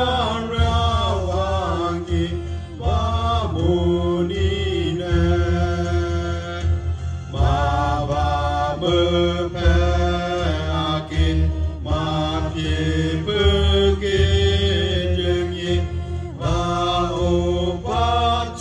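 Music: a singing voice on long held notes that glide between pitches, over a steady low bass accompaniment.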